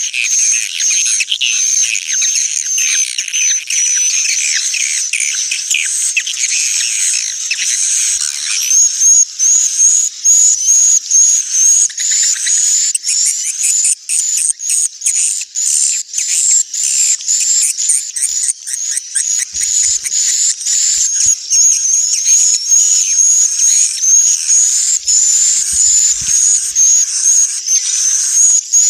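Swiftlet calls from a 'suara inap' roosting-lure recording, the kind played in swiftlet nesting houses to draw birds in to roost: a dense, continuous chatter of high chirps and twitters from many birds, with quick repeated chirps throughout. It is fuller, with lower twittering, for the first several seconds.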